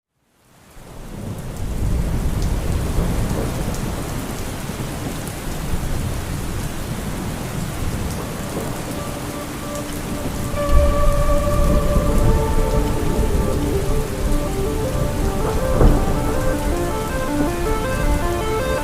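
Heavy rain falling steadily, fading in at the start, with deep rumbles of thunder that swell about halfway and again near the end. From about halfway a soft melodic music line enters over the rain.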